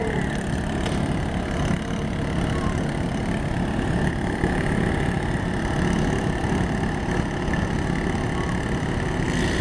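Derby lawn mower engines running together in a steady, unbroken drone.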